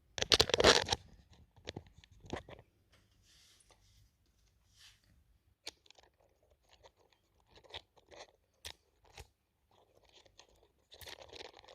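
Handling noise while a bolt and washers are fitted one-handed to a motorcycle shift linkage: a loud scuffing rustle in the first second, then scattered small clicks, taps and rustles of hands and hardware.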